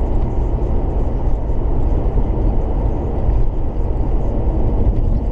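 Steady road and engine noise inside the cabin of a 1999 Jeep Cherokee XJ while it is being driven, a dense low rumble with no sudden events.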